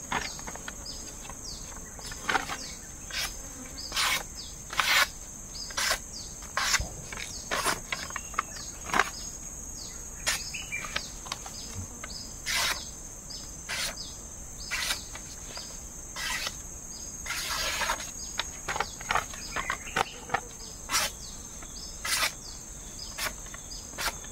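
A sharpened parang blade slicing through paper in short, sharp strokes, about one a second, over a steady high-pitched drone of insects.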